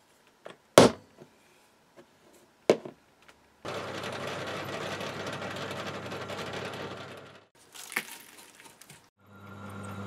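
Two sharp hammer blows on a centre punch marking a 10 mm square steel bar, the loudest sounds here, with a few lighter taps around them. Then a bench pillar drill runs, drilling the steel bar for about four seconds, stops with a few clicks, and starts again near the end with a steady hum.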